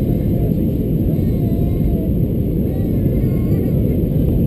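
Steady cabin noise of an Airbus A320-214 in flight on its descent: a dense, unbroken low rumble of airflow and engines, with faint voices in the cabin.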